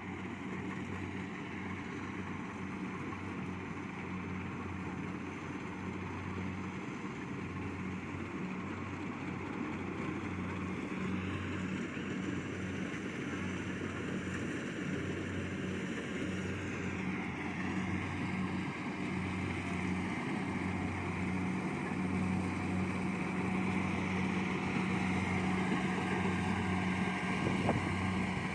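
Kubota DC70 Plus combine harvester's diesel engine and threshing machinery running steadily while cutting rice, a continuous hum that slowly grows louder.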